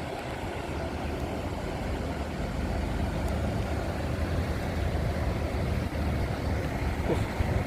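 Large intercity bus's diesel engine idling with a steady low rumble, growing gradually louder.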